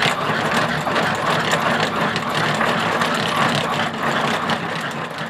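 Dog treadmill running fast under a Staffordshire Bull Terrier: a steady, rapid mechanical clatter of the belt and rollers mixed with the dog's paw strikes. It begins to fade near the end.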